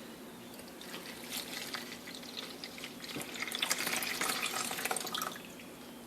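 Warm water being poured from a cup into a bowl, a splashing trickle that gets louder about three seconds in and stops a little after five seconds.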